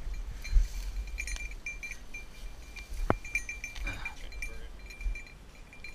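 Small bell on a bird dog's collar tinkling in quick, irregular jingles as the dog works through the grass, with low bumps on the microphone and a sharp click about three seconds in.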